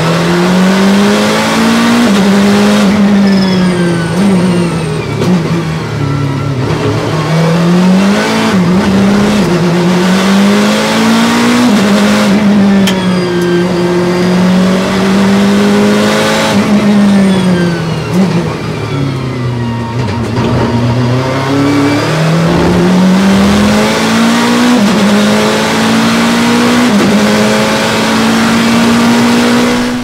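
McLaren 12C GT3's twin-turbocharged 3.8-litre V8 heard from inside the cockpit at racing speed. The revs climb and fall again and again as the car accelerates and brakes, with a few short, sharp cracks.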